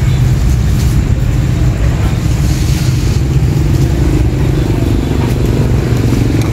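Steady low rumble of passing street traffic, mostly motorcycle engines, with a faint engine tone rising and falling in the second half.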